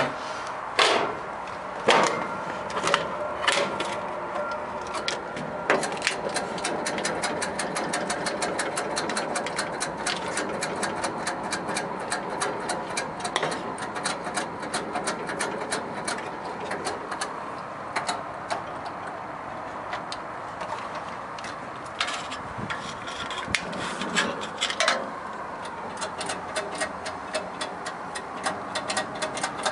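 A gas griddle being lit, with its igniter clicking fast and evenly, about four or five clicks a second. A few heavier knocks come in the first few seconds.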